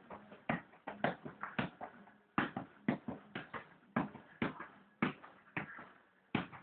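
Size 1 ball being juggled: a sharp tap at each touch, about two touches a second in an even rhythm.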